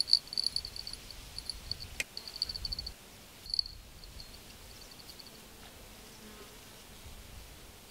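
Homemade bite alarm's buzzer chirping in rapid, irregular high-pitched beeps as the rod's swinger indicator is moved by a bite, falling silent a little after five seconds in. A single sharp click about two seconds in.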